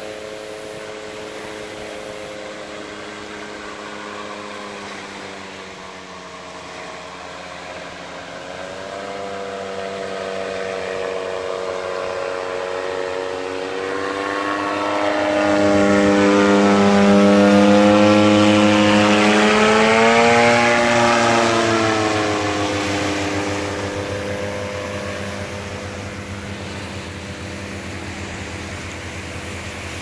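Small engine and propeller of a powered paraglider (paramotor) droning in flight. It grows louder as it approaches and is loudest as it passes overhead a little past halfway, where its pitch drops. It then fades as it flies away.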